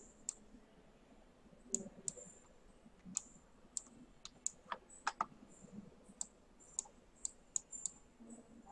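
Computer mouse buttons clicking faintly and irregularly, about twenty sharp clicks, as strokes of handwriting are drawn with the mouse in a paint program.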